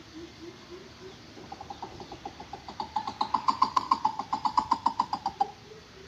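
Coucal calling: a fast run of hooting notes, about six a second, swells louder and stops near the end. Under it runs a slower, steady series of low hoots.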